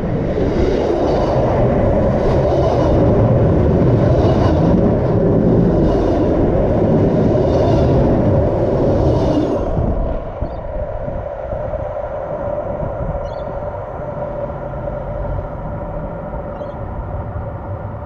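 Pacific National freight train wagons rolling directly over the track: a loud rumble with a regular clatter of wheels on the rail. About ten seconds in the last wagon clears and the noise drops sharply to a quieter steady hum with faint ringing tones.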